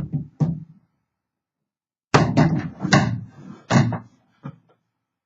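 Hard knocks and thumps from the typewriter's hard-shell carrying case being handled: two knocks about half a second apart, then a two-second run of clattering knocks and bumps, and one last small knock.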